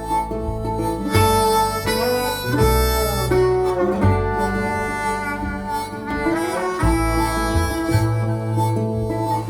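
Background music led by a harmonica, with bending notes over guitar and a steady bass line.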